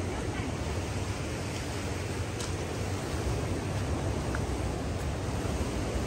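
Steady outdoor noise of sea surf and wind, with a heavy low rumble, and a single brief click about two and a half seconds in.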